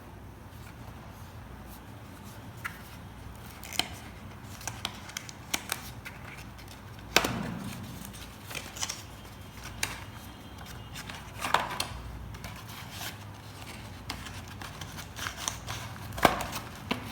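Handling noise from unboxing: scattered clicks, taps and rustles of packaging and a small headset being handled, with the sharpest knocks about seven, eleven and sixteen seconds in.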